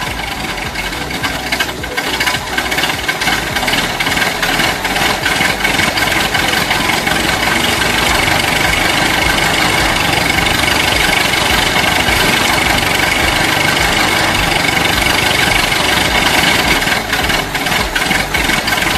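Diesel tractor engine running steadily with a knocking clatter.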